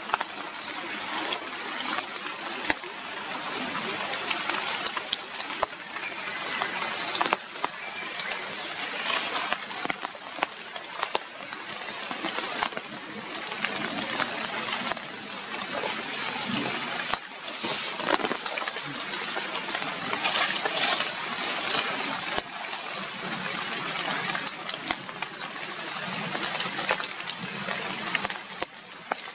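Steady rain falling on leaves, a dense hiss with many scattered drips and taps.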